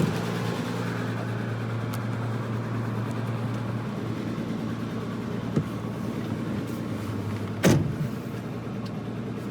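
Volvo 164's B30 inline-six running on the road, heard from inside the cabin with wind noise on the microphone; the engine note drops slightly about four seconds in. A loud thump comes near the end.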